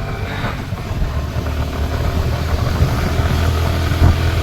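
Yamaha R15 V4 motorcycle running while being ridden, a steady low rumble that grows gradually louder.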